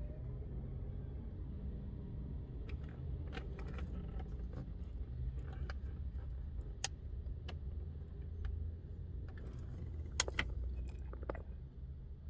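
Car keys jangling and clicking at the ignition of a 2012 Chevy Sonic, with sharp clicks scattered through, over a steady low hum. The engine does not start, as the anti-theft lock keeps it from running.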